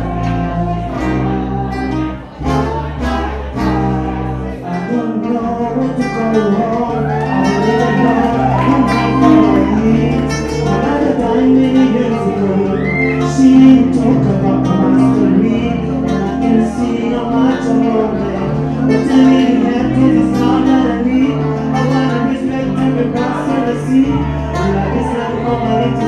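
Music: a song with steady bass notes, a beat and guitar, with a singing voice coming in about six seconds in.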